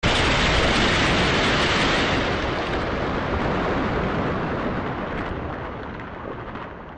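A rushing noise sound effect under an animated title card. It starts suddenly at full strength and slowly fades away.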